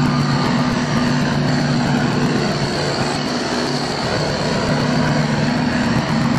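A heavy engine running steadily at a constant low pitch, with a dense even mechanical rumble.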